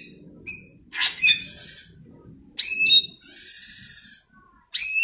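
Cucak ijo (green leafbird) singing: sharp, quickly rising whistled notes alternating with a long harsh rasping note.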